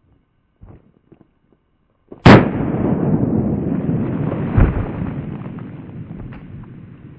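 A few faint clicks, then a sudden loud blast about two seconds in, followed by a long rumble that slowly fades, with a second bang in the middle of it.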